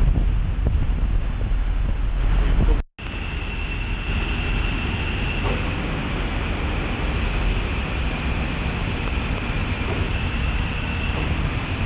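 Steady factory background noise, a low rumble with a hiss over it. It cuts out for an instant about three seconds in, then goes on a little quieter.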